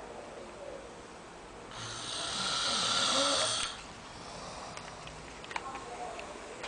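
A man snoring loudly in deep sleep: one long, noisy snoring breath from about two to four seconds in, with quieter breathing and a few small clicks around it.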